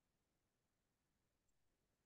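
Near silence: a dead recording line with only a faint tick about one and a half seconds in.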